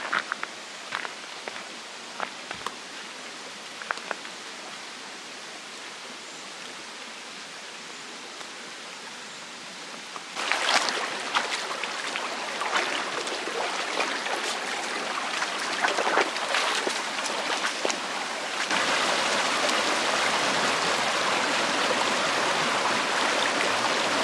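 Mountain stream running over rocks, with scattered splashes. The rush of water gets suddenly louder about ten seconds in, and again about eight seconds later.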